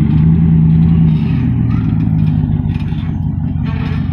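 Work truck's engine running at low revs as the truck rolls back, a steady low drone that eases slightly after the first second.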